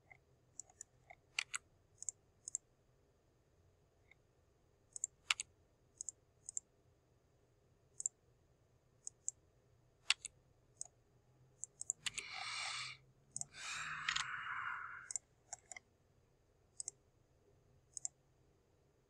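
Faint, scattered single clicks of a computer mouse and keyboard. In the later part come two soft hissing noises of about a second each.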